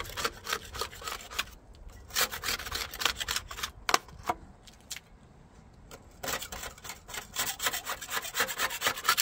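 A hand scraper scraping barnacles off a boat hull in quick, repeated strokes. The barnacles have been softened by barnacle remover. The scraping pauses briefly about halfway through, then picks up again.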